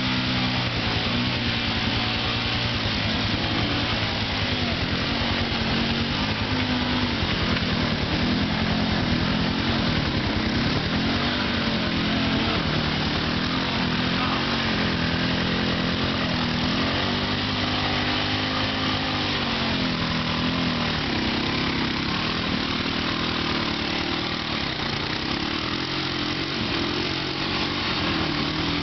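ATV engine running while riding, its pitch rising and falling again and again as the throttle opens and eases off.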